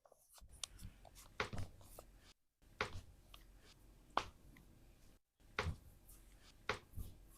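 A series of sharp cracks and pops from a back and spine being manipulated, some in quick pairs, over faint rubbing of hands on skin.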